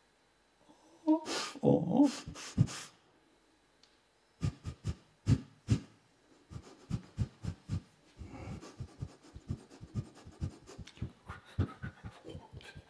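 Mouth sounds made close into a microphone: a few loud breathy, voiced sounds, then a long run of quick lip pops and clicks, several a second.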